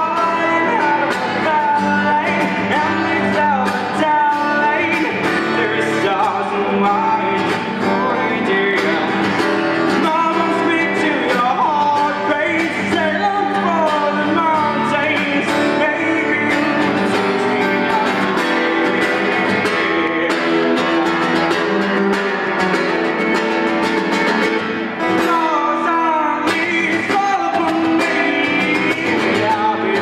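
A man singing with his own strummed acoustic guitar accompaniment, a live solo performance.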